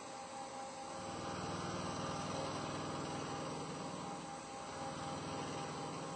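Haas TL-15 CNC lathe at work turning a metal part: the spindle runs with a steady whine under the noise of the cut. The cutting grows a little louder about a second in and eases off near the end.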